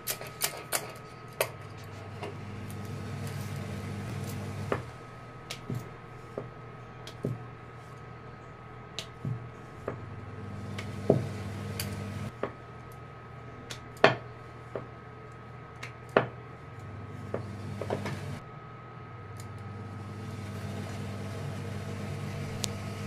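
Wooden rolling pin rolling dough out on a round wooden board: a low rumble in stretches of a few seconds as the pin is rolled back and forth, with scattered sharp clicks and knocks.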